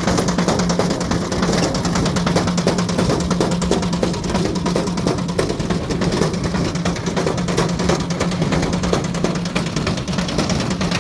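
Ariston Margherita washing machine running with a brick loose in its drum: a fast, continuous stream of heavy knocks and bangs over a steady motor hum.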